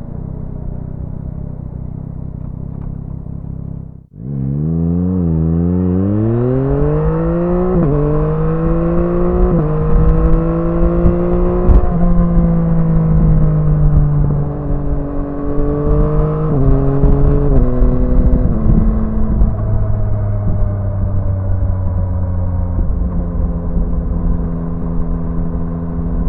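2022 Yamaha MT-09's three-cylinder engine through its stock exhaust, heard from the rider's seat. It runs at a steady note, cuts out abruptly about four seconds in, then pulls up through several gears, its pitch climbing and dropping at each shift. Around the middle the pitch rises and falls in steps as the gears change, and it then settles into a steady cruise.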